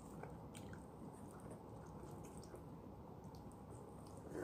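Faint wet sucking and chewing on a lemon segment, with a few soft mouth clicks.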